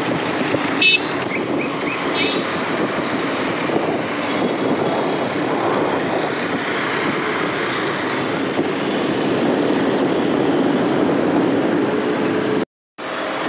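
Steady road and traffic noise heard from a vehicle moving through city traffic, with a brief click about a second in. The sound cuts out completely for a moment near the end.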